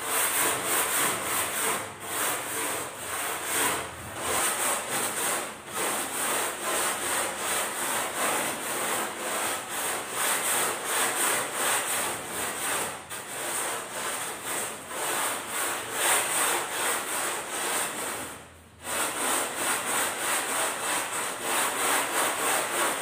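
Hand sanding block rubbing back and forth over a bare styrofoam boat hull, a steady run of scratchy strokes, shaping the foam before resin and fibreglass go on. There is one short break in the strokes about three-quarters of the way through.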